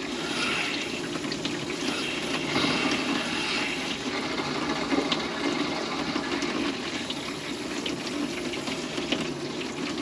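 Water running steadily through an RV water heater and its lines with the hot tap open, a little trapped air still coming through as the tank is purged after a check valve replacement.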